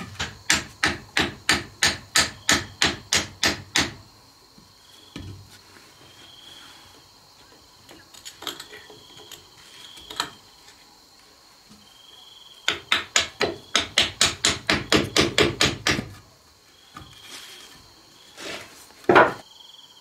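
Hammer striking a wooden beam in two quick runs of blows, about three or four a second, with a few single knocks between them. Faint insect chirping runs underneath.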